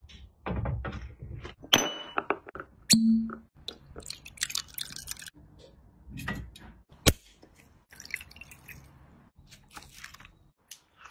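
Eating at a table: chewing and handling of shellfish and tableware, with a string of sharp knocks and clicks and a short ringing clink about two seconds in.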